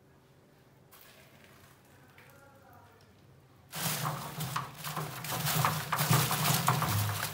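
Mice scrabbling and rustling over loose plastic pellets inside a clear plastic bucket trap. It is faint at first, then about four seconds in turns suddenly into a loud, dense scratching and rattling close to the microphone.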